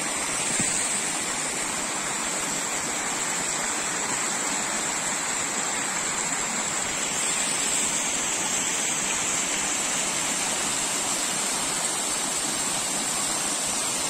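Two-tier mountain waterfall: water pouring steadily over rock in an even, unbroken rush.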